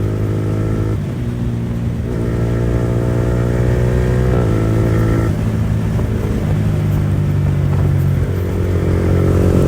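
Yamaha R15 V4's 155 cc single-cylinder engine running loud through an open R9 aftermarket exhaust with the dB killer removed, held at steady revs with its pitch changing in steps several times as the bike is ridden.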